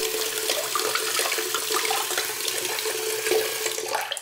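Bathroom faucet running a thin stream into a ceramic sink, with a washcloth being wetted under it; a steady rush of water.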